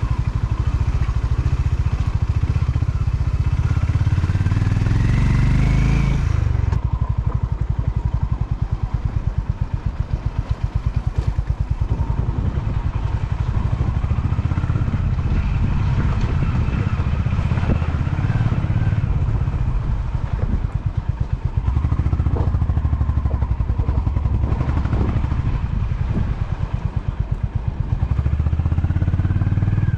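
Motorcycle engine running under way over rough off-road ground, the revs climbing over the first few seconds and rising and falling again later, with rattling from the loaded bike.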